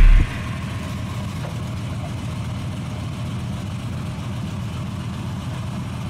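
A car engine idling with a steady low rumble.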